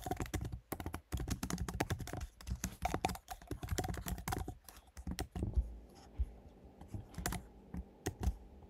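Typing on a computer keyboard: a quick run of keystrokes for about five seconds, then a few scattered key presses.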